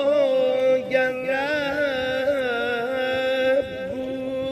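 A man's solo voice singing one long held note, with small ornamental waverings in pitch.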